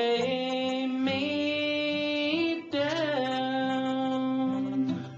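A man's voice singing a slow, wordless melody in long held notes, with little or no guitar. The pitch moves to a new note about a second in and again near three seconds.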